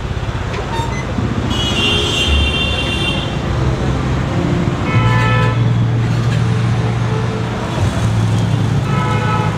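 Busy road traffic with engines running and a constant low hum, and vehicle horns tooting several times: about a second and a half in, again around five seconds in, and near the end.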